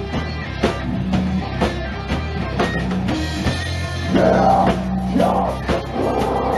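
Live rock band playing: drum kit hits, bass and guitars, with a vocal line coming in about four seconds in.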